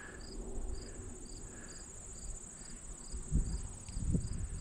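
Crickets chirping: a steady high-pitched trill with a regular chirp about three times a second. A couple of low rumbles come in near the end.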